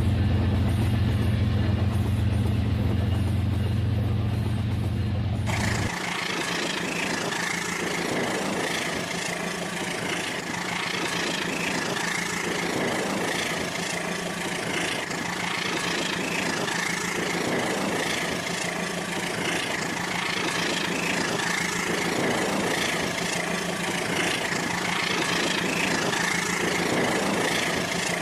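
Rail King battery-powered toy train running on its plastic track. A low, steady engine-like hum stops abruptly about five seconds in, then the small electric motor whirs steadily with a soft clatter repeating every second or two.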